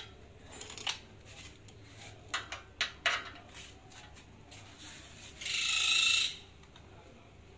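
Scattered metal clicks and knocks as parts and tools are handled during reassembly of a stacker's mast and chain, followed about five and a half seconds in by a short, high screech of metal lasting under a second.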